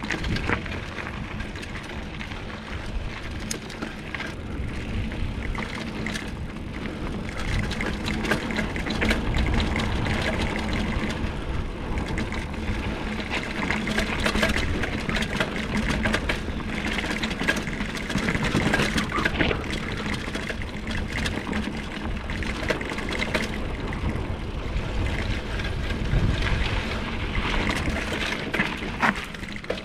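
Mountain bike being ridden along a dirt trail: steady tyre noise over loose dirt and gravel, with many small rattles and clicks from the bike over bumps and a low wind rumble on the microphone.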